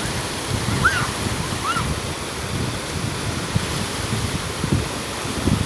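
Sea surf washing onto a beach, with wind buffeting the microphone. Two short high calls sound about one and two seconds in.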